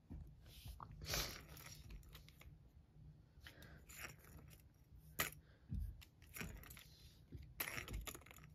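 Small plastic balls clicking and clattering in a plastic cat toy's ball track as the toy is handled: a faint, irregular series of separate clicks and rattles.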